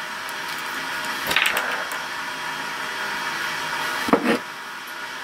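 Small hand tools and wire being handled on a plywood floor: a short rattle about a second and a half in and a louder knock a little after four seconds, over a steady fan-like hiss.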